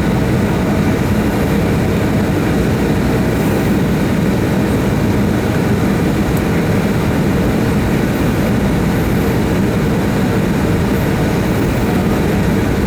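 Steady cabin noise of a Boeing 757-200's jet engines running at a constant low setting, heard from inside the passenger cabin: an even, low rumble that does not rise or fall.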